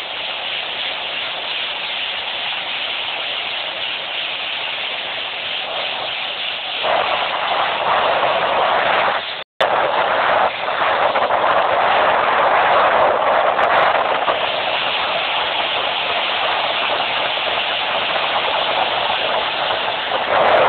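Speed boat running fast across open water: a steady rushing noise of wind, spray and motor blended together. It gets louder about seven seconds in and cuts out for a moment near ten seconds.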